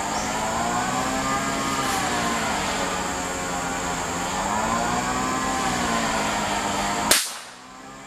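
A single sharp hunting-rifle shot about seven seconds in, fired up into the tree at a monitor lizard, over a steady droning hum that slowly wavers in pitch. Everything dips sharply in level just after the shot.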